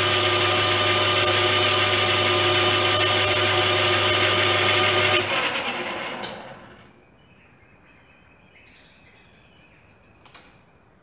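Small metal lathe running steadily, a motor whine over a low hum, with a hiss of abrasive cloth against the spinning steel distance piece as its seal surface is polished smooth. The hiss stops about four seconds in; a second later the lathe is switched off and winds down, leaving a faint click or two.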